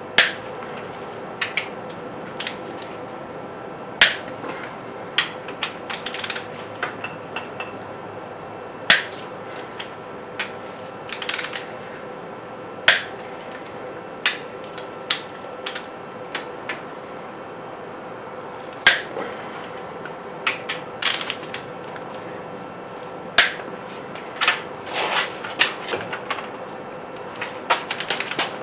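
Torque wrench on small-block Chevy 350 cylinder head bolts: a sharp metallic click every four or five seconds as each bolt reaches 55 ft-lb, with lighter clinks of the socket and wrench between.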